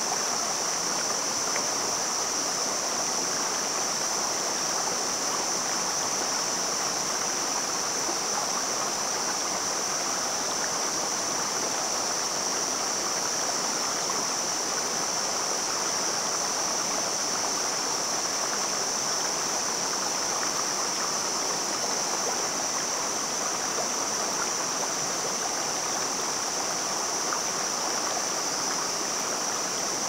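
Shallow mountain stream rushing over rocks and cobbles: a steady, even rush of water with no breaks.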